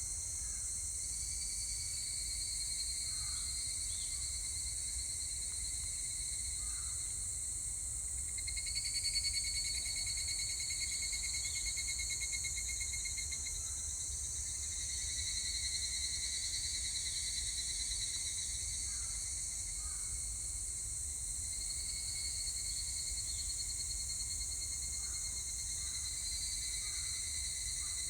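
Higurashi cicadas (evening cicadas) calling in a chorus of overlapping, rapidly pulsed phrases, each lasting several seconds, over a steady high insect hiss. New phrases swell in about a second in, at about a third of the way through, around the middle, and near the end.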